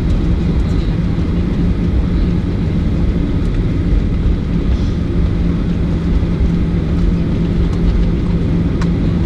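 Cabin noise of a jet airliner taxiing: a steady, low engine rumble with a constant hum.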